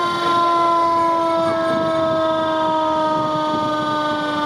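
Fire truck siren sounding one long tone that slowly falls in pitch.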